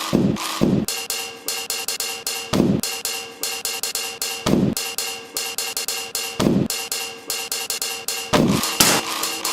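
A rhythmic percussion beat: a low thump about every two seconds with fast, even ticking strokes between, over a steady held tone.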